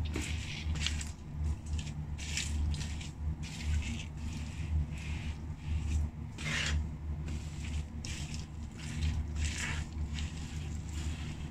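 Lug-soled leather loafers crushing and grinding french fries on a tile floor: a string of short, irregular squashing and scraping sounds, over a steady low hum.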